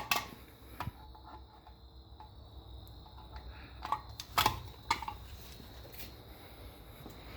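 Faint, steady low hum of a 60-gallon Kobalt air compressor running, with a few sharp clicks and knocks.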